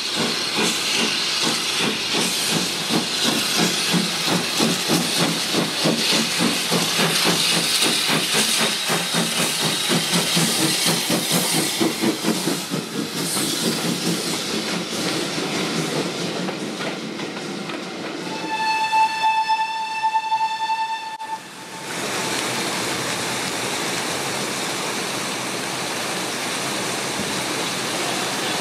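Steam locomotive working under steam, its exhaust beats running together with loud steam hiss. It then gives one steady whistle blast of about three seconds. After a sudden cut there is a steady rushing hiss.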